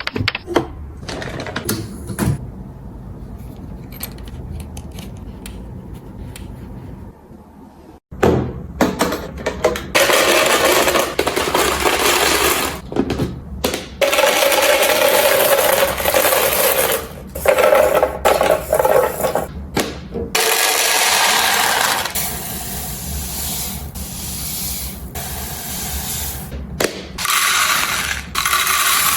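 Household items being handled: light clicks and knocks at first, then from about eight seconds on long stretches of hissing, rustling noise broken by sharp clicks and clacks.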